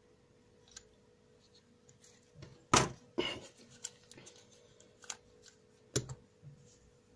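Hands handling a plastic mini quadcopter and a metal digital caliper on a table: scattered clicks and knocks, the loudest a pair of knocks about three seconds in and another sharp knock about six seconds in.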